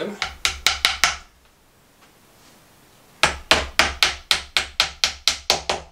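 Claw hammer tapping IKEA plastic nails into a pine drawer panel: a quick run of about five strikes, a pause of about two seconds, then a steady run of about ten more at roughly four a second.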